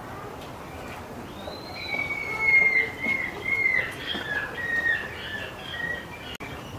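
A bird calling: a run of high, whistled notes, broken into short pieces and drifting slightly down in pitch, over about four seconds.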